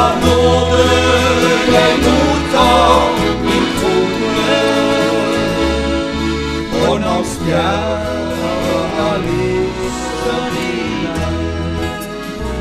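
Gospel band playing live: electric bass, acoustic guitars and accordion, with a few sung phrases over the top. The music eases off near the end as the song draws to a close.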